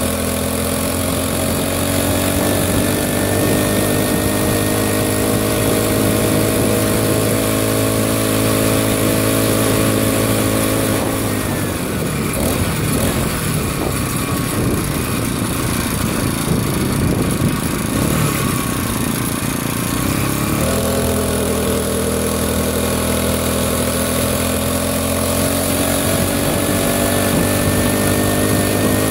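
Small two-stroke engine of a motorized bicycle running steadily under way, with wind hiss. About eleven seconds in its even note breaks up into a rough, uneven sound for around ten seconds, then the steady note comes back suddenly.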